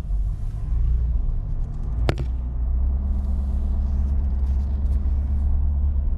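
Pickup truck pulling a loaded flatbed trailer, its engine running with a low, steady rumble as it moves slowly. One sharp click about two seconds in.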